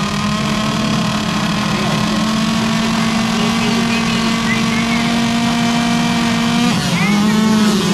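A line of motocross bikes at the starting gate running at steady held revs, a constant engine drone. About seven seconds in the engine note breaks off and swoops up and down as the bikes launch off the gate.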